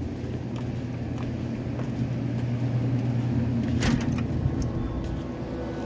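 A steady low machine hum with a sharp click about four seconds in.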